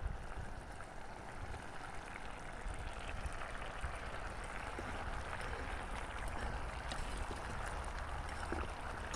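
Coconut curry simmering and bubbling steadily in a pan over a wood fire, with scattered faint ticks from the fire or the stirring utensil.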